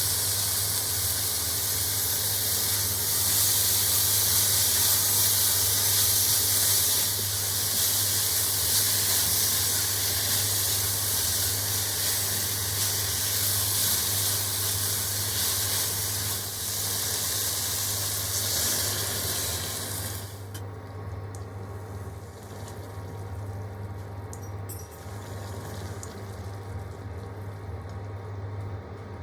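Vegetables sizzling in a hot pan with a steady hiss that drops away sharply about twenty seconds in.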